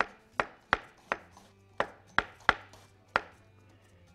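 Chef's knife shredding a red cabbage on a wooden cutting board: about eight sharp chops in quick, uneven succession, the blade knocking the board with each cut.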